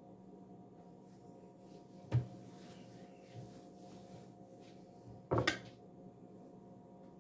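Two light knocks of kitchen things being handled on the counter, about three seconds apart, the second louder, over a faint steady hum.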